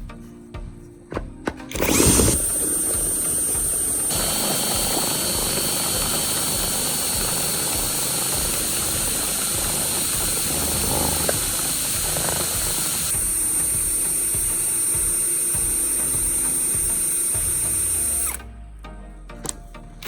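Power drill motor spinning up about two seconds in and then running steadily at speed with a high whine. It stops abruptly near the end.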